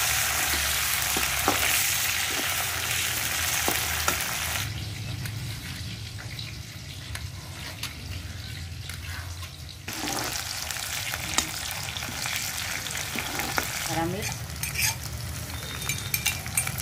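Chopped onions and whole spices sizzling in hot ghee in a steel kadhai, with the scrape and clink of a metal ladle stirring. The loud sizzle cuts off about five seconds in, and a quieter stretch with light clicks and scrapes follows.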